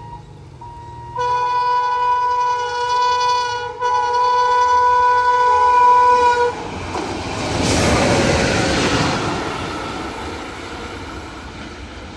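Indian Railways WAP-7 and WAP-4 electric locomotives running light at speed. The horn gives a short note, then a long blast of about five seconds. As the horn stops, a loud rush of the locomotives passing rises to a peak and fades as they draw away.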